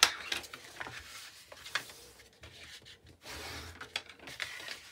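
Scored craft paper being folded and creased flat: rustling and short scraping strokes of a burnishing tool along the folds, with a sharp tap right at the start.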